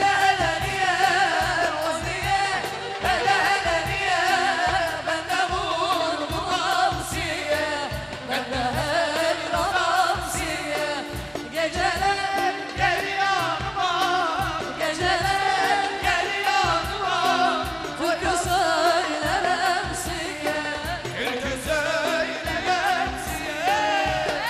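Turkish popular song performed live: a voice singing a wavering, ornamented melody over band accompaniment with a steady beat.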